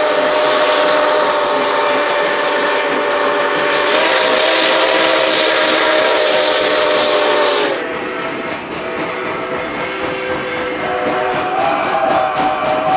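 Sound system of an O scale model steam locomotive, the NKP 765 Berkshire, sounding a long chime steam whistle with several notes held together, over a steam hiss that cuts off sharply about eight seconds in.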